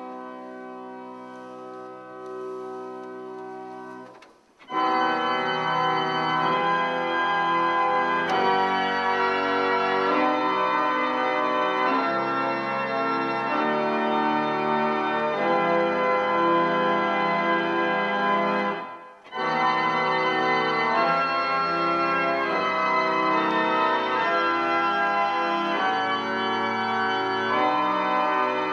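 A 1909 Norman & Beard pipe organ, its wind raised by a hydraulic water engine, being played. It starts with a soft held chord. After a brief break about four seconds in, it plays loud full chords over deep pedal bass notes. The playing pauses for a moment about two-thirds of the way through, then carries on.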